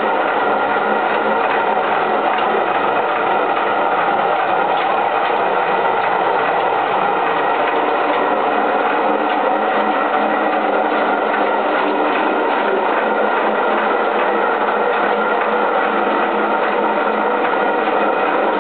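Runner millstone of a water-powered river mill turning and grinding grain, with a steady fast clatter from the wooden feeder stick riding on the stone and shaking grain down from the hopper.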